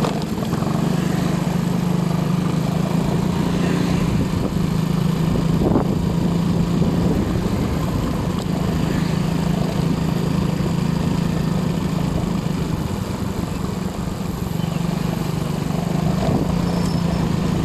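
A small engine running at a steady speed: a constant low drone with a noisy rush over it.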